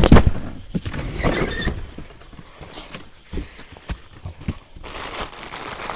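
A cardboard box thumps down onto a wooden surface, then rustles and knocks lightly as it is handled and opened. A steadier rustle of packaging follows near the end.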